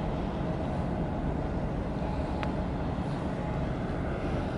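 Steady low rumble of the engines of a departing bulk carrier and its escorting harbour tug, with a faint steady hum over it and one brief tick about two and a half seconds in.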